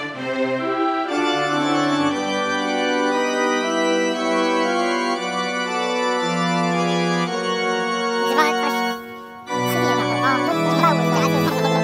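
Background music of sustained organ-like keyboard chords, breaking off briefly about nine seconds in and then resuming.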